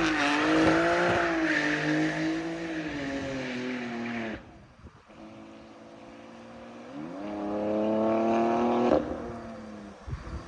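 A 2021 BMW X3 M's twin-turbo straight-six, running through freshly fitted catless downpipes, is revved twice. It comes down from the first rev and goes suddenly quieter about four seconds in. It climbs again around seven seconds and falls back about two seconds later.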